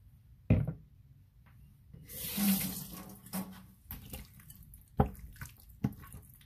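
A hand squishing and mixing seasoned raw chicken pieces in a bowl: wet squelching that is loudest for a second or two in the middle. A sharp knock comes about half a second in, and two short clicks come near the end.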